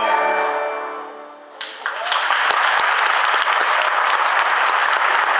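The final held chord of a children's choir fades away, and about one and a half seconds in the audience bursts into applause, which stays loud and steady.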